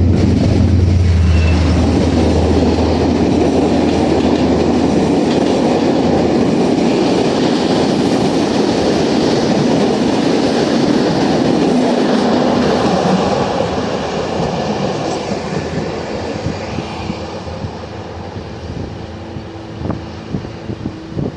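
Corail intercity train hauled by a CC 72100 diesel locomotive passing through the station. The locomotive's low engine drone is heard for the first few seconds, then the coaches roll by loudly. The sound fades after about thirteen seconds, with wheel clicks over rail joints near the end.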